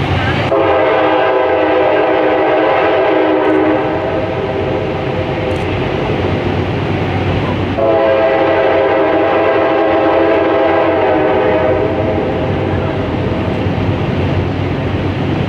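CSX diesel freight locomotive sounding its air horn, a chord of several tones, in two long blasts: the first runs about three seconds, the second starts about eight seconds in and fades out. The engine's low rumble and rail noise run underneath.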